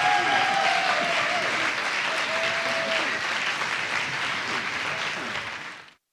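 Audience applauding, with a few held calls over it. It fades sharply and cuts off near the end.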